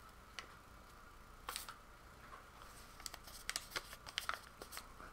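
Folded paper slip being opened by hand: a few faint crinkles, then a flurry of quick paper rustles and crackles about three seconds in.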